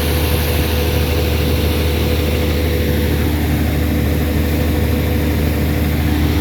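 Air compressor running steadily during tubewell development: a constant low engine hum with a continuous rushing noise over it, unchanging throughout.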